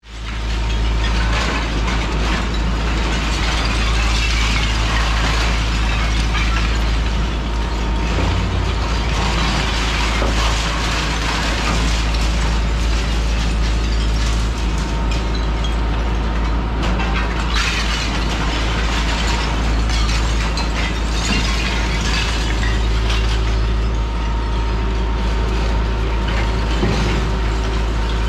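Hitachi ZX210 demolition excavator working: its diesel engine runs steadily under load, with the continuous crunching and clatter of masonry and debris as the demolition tool tears at the building.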